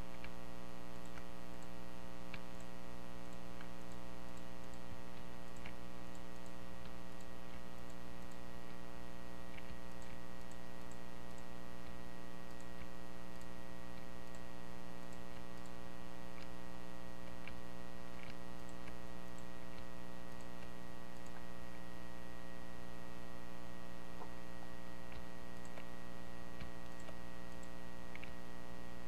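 Steady electrical mains hum with many overtones, picked up by the recording microphone, with a few faint clicks scattered through it.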